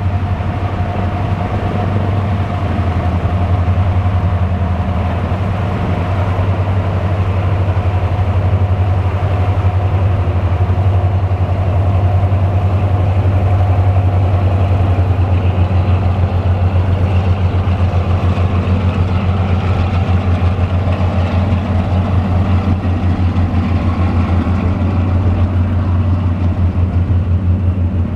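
The twin Allison V-1710 V12 engines of a Lockheed P-38 Lightning running at low power while it taxis. The sound is a steady, loud low drone with a fast, even pulse.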